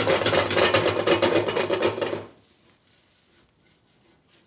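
Wooden spatula rapidly scraping and clattering against a wok as rice is stir-fried over high heat. It stops abruptly a little over two seconds in, leaving only faint sounds.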